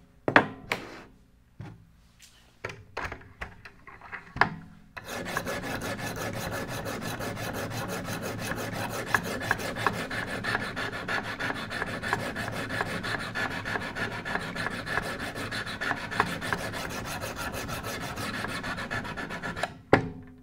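A few clicks and knocks as sharpening stones are handled on a Wicked Edge guided knife sharpener. About five seconds in, a paired sharpening stone starts stroking quickly and steadily along the clamped knife blade, an even rasping that runs for about fifteen seconds and stops just before the end, drawing a burr on the edge.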